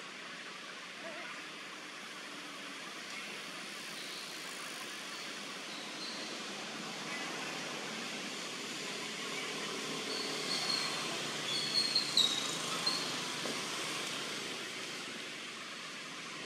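Steady outdoor background noise, with a few short high chirps about four seconds in and a brief cluster of sharper, louder chirps about two-thirds of the way through.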